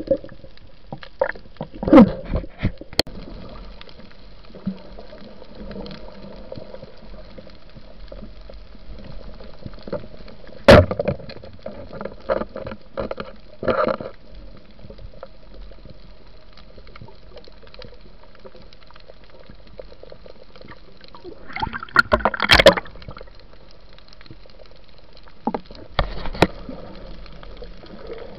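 Underwater sound heard through a waterproof camera housing: a steady muffled rushing of water, broken by sharp knocks and clicks, a few near the start, one about a third of the way in, a cluster about three quarters of the way in and one more near the end.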